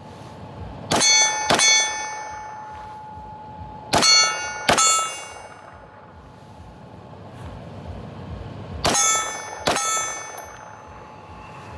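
Six pistol shots from a Zev-modified Glock, fired as three quick pairs a few seconds apart. Each pair sets steel targets clanging and ringing on for a second or more.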